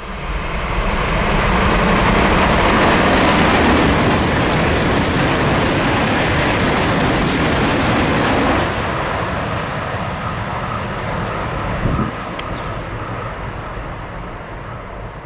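High-speed electric train passing at speed: a loud rush of wheel and air noise builds within a second and holds for several seconds. It drops off a little past halfway, with a brief thump about twelve seconds in, then fades away.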